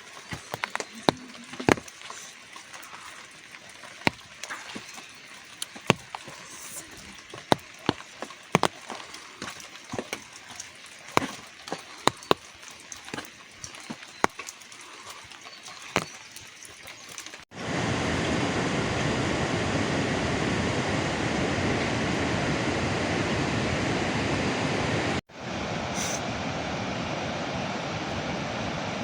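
Scattered sharp clicks and knocks for about the first half. Then, after a sudden cut, a loud steady rush of water.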